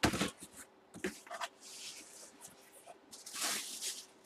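Clear plastic bag rustling and crinkling as it is handled and pulled about in a cardboard box, in several short bursts, the loudest right at the start.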